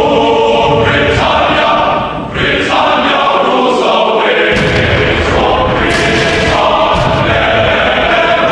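Choral music: voices singing long held chords that change about every second.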